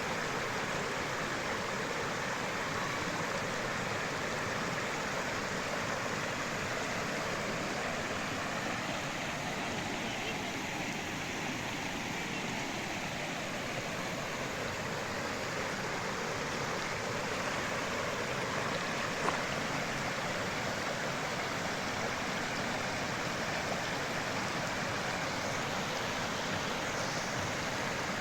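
Stream water flowing steadily, an even rushing with one brief click about two-thirds of the way through.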